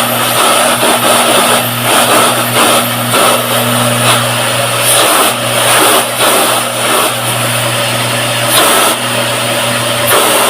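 Electrolux ProSilent vacuum cleaner running steadily: a continuous rush of motor and airflow noise with a low hum.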